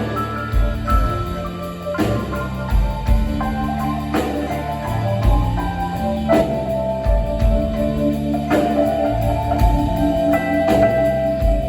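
Live rock band playing an instrumental passage with drums and held lead notes, no vocals.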